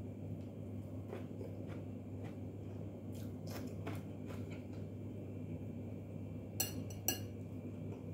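Someone eating with their fingers: faint mouth and chewing ticks over a steady low hum, then near the end two sharp clicks half a second apart, a metal spoon knocking against a ceramic bowl.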